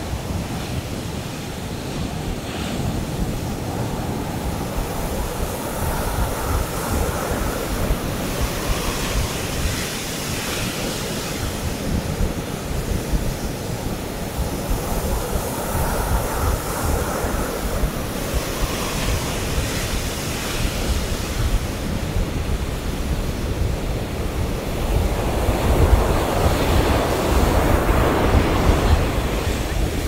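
Ocean surf breaking and washing up a sandy beach, a steady rush that swells and eases with each wave and grows louder near the end. Wind rumbles on the microphone underneath.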